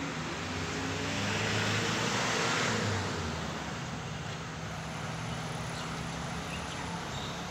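Class S12 diesel-electric multiple unit under way as it pulls out, a steady low diesel engine drone with wheel and track noise; the rushing track noise swells over the first three seconds, then eases back.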